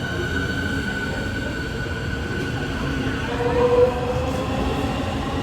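Berlin S-Bahn Class 484 electric train running, its Siemens VVVF traction inverter giving a siren-like motor whine over the rumble of the train. A steady high tone fades about three seconds in, and new, lower tones then come in and shift in pitch.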